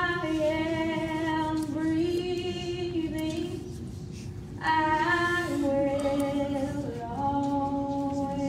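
A woman singing slowly, holding long notes, in two phrases; the second phrase starts about four and a half seconds in.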